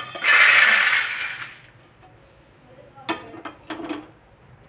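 Dry-roasted peanuts and chana dal poured from a pan onto a steel plate: a loud rattling rush for about a second and a half. About three seconds in come a few short metal clinks and clatters.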